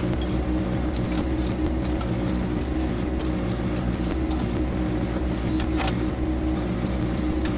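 John Deere 2025R compact tractor's three-cylinder diesel engine running steadily while it works a backhoe digging a ditch, with a few faint clicks over it.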